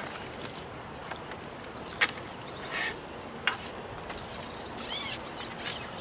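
Small birds singing: scattered high chirps and a quick trill of repeated notes about five seconds in. A couple of sharp clicks stand out, at about two seconds and again at three and a half.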